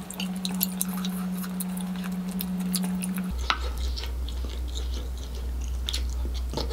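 Close-miked eating sounds: a spoon scraping and knocking on a plate of thick seafood gravy, with wet chewing and mouth clicks. One sharper knock with a short ring comes about halfway through. A steady low hum runs underneath.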